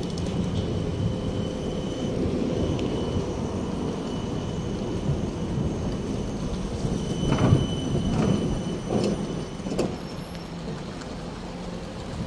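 City street traffic: a steady low rumble of passing vehicles, louder with some clattering about seven to eight seconds in, and a brief high squeal near ten seconds.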